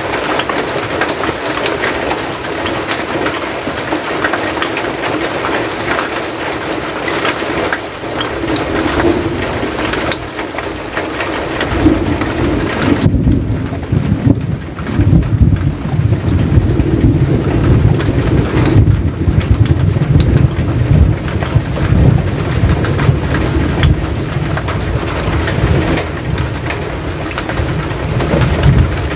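Steady rain falling on a metal roof and wet ground. About halfway through, a deep rumble comes in and stays under the rain to the end.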